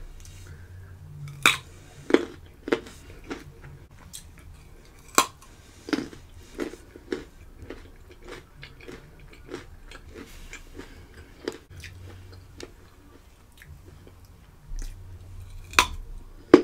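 Close-miked biting and chewing of crunchy raw carrot sticks, a string of irregular crunches with a loud bite near the end.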